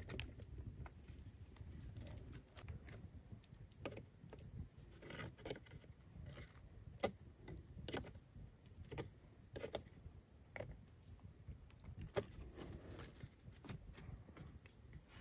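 Scattered small metallic clicks and clinks as wire is twisted with multitool pliers to bind a cane hoop to a stick-wall window frame, with irregular light taps of the hoop against the sticks.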